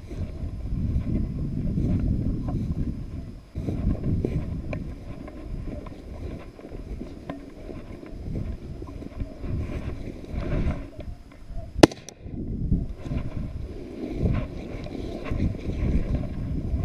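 Wind buffeting the microphone of a body-worn camera in uneven gusts, with dry grass and brush rustling against the walker. About twelve seconds in comes one sharp, loud crack.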